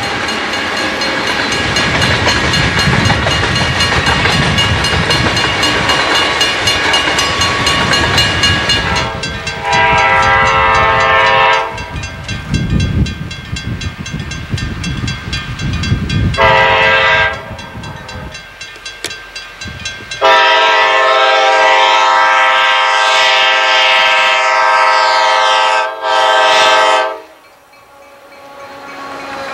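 A coal train's hopper cars rolling past a grade crossing. Then an Amtrak F40PH diesel locomotive approaching through snow sounds its horn: a long blast, a short one, a long held blast and a final short one.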